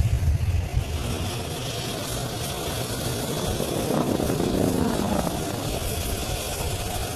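Several HAL Dhruv helicopters flying overhead in a display: a steady drone of rotor and engine noise, with a tone that falls in pitch about four seconds in as one passes.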